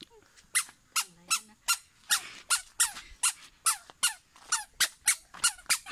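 Toddler's squeaky shoes chirping with each step, about two to three squeaks a second, as a baby takes steps while learning to walk.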